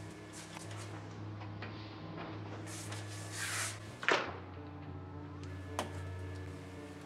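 Background music with a bass line that changes note every second or so. Over it come a whoosh about three seconds in, a sharp knock just after four seconds, and a small click near six seconds.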